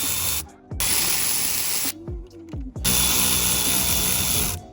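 Cordless power tool run in three bursts, each stopping briefly before starting again, with a steady high whine under the noise.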